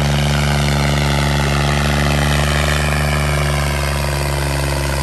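Tractor's diesel engine running steadily, its pitch dipping slightly a little past halfway.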